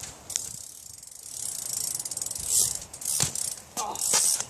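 BMX bike's rear hub freewheel ticking fast and evenly as the bike coasts, with a sharp knock about three seconds in.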